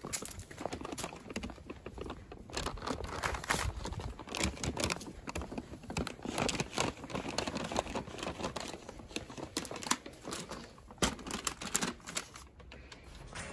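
Brown paper takeout bag crinkling and rustling in irregular crackles as it is gripped and its top folded over by hand.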